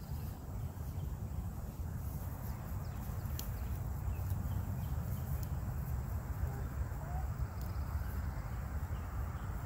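Wind buffeting the microphone: a steady low rumble, with faint outdoor background noise above it.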